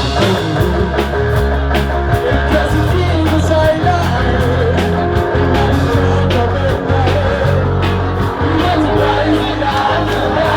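Loud rock-style music with a steady drum beat, a heavy bass line and a voice singing.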